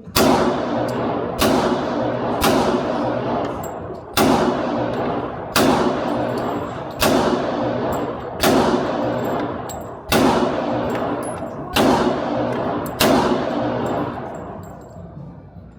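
Ten pistol shots from a .40 S&W Glock 23, fired one at a time about one and a half seconds apart, each ringing out and fading before the next.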